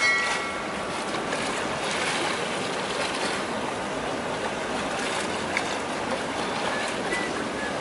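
Steady rushing wash of water along the hull of a moving river tour boat, an electric bumboat, with no engine note.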